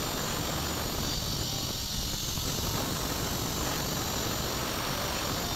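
Handheld electric marble cutter with a diamond blade cutting along a granite slab: a steady, high hissing grind.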